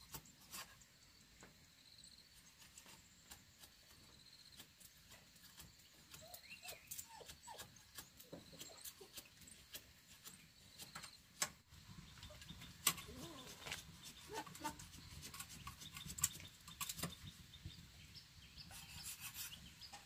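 Puppies whining and whimpering in short rising and falling cries, in two clusters, mixed with scattered faint clicks and knocks.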